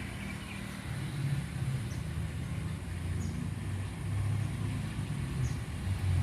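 An engine running with a low hum whose pitch shifts, growing louder toward the end.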